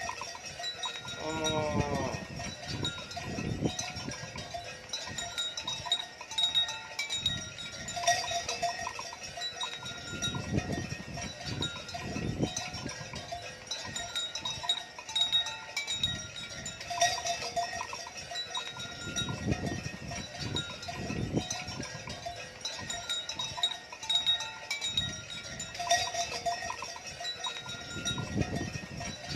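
A herd of cattle on the move, cowbells clanking again and again, with one cow's call rising in pitch about a second and a half in.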